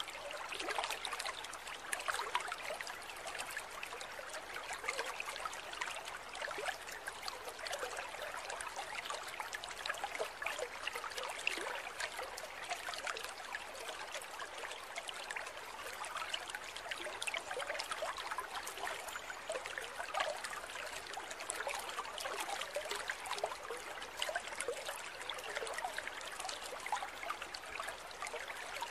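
Water trickling and bubbling in an aquarium: a steady fizzing with many small crackles that does not let up.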